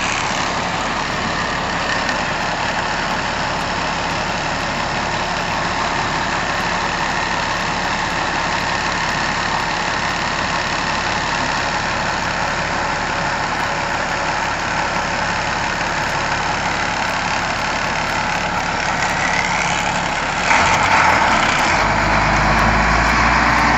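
School bus engine idling steadily, then growing louder about twenty seconds in as the bus pulls away, with a deep rumble near the end.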